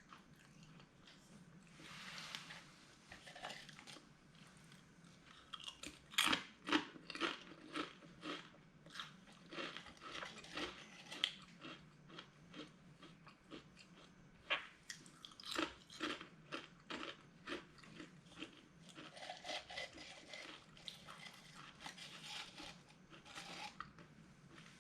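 A person chewing a crisp spicy potato snack close to the microphone, with irregular sharp crunches that come thick and fast from about six seconds in.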